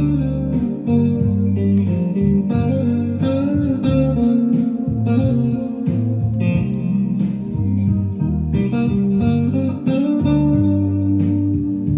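Background music: a blues-style guitar tune with plucked notes over a bass line.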